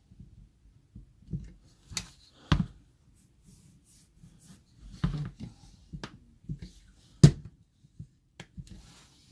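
F-clamps being handled and tightened on glued plywood pieces: a string of scattered clicks and knocks, the sharpest about seven seconds in, with light scraping between.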